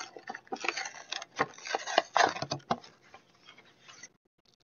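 Plastic blister packaging of a trading-card three-pack crinkling and clicking as it is handled, a run of sharp crackles and rustles that stops about four seconds in.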